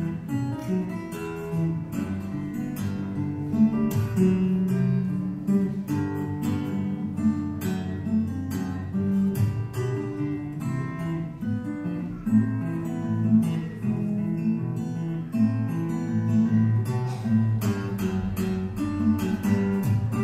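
Solo acoustic guitar played unaccompanied, a continuous run of plucked notes and chords.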